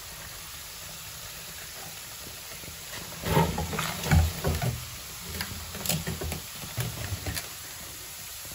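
Vinegar and baking-soda solution fizzing in a plastic humidifier tank with a faint steady hiss, then from about three seconds in a series of irregular low thumps and clicks over a few seconds.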